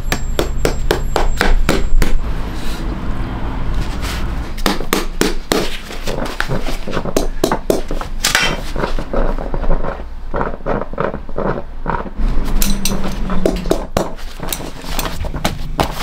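Shoemaker's hammer tapping tacks into a leather hiking boot upper, in quick runs of several sharp strikes a second broken by short pauses, over a low steady hum.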